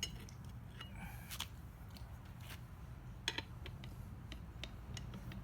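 Scattered light metallic clicks and clinks of hand-lever bead breakers working against a motorcycle wheel rim while breaking the tire bead, over a steady low hum.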